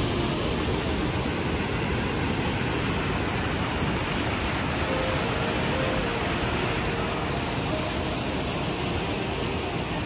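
Steady roar of the Rhine Falls, a large waterfall's cascading water heard close up.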